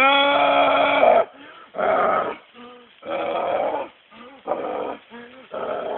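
A man imitating a wolf, howling and growling: one long held howl, then four shorter calls.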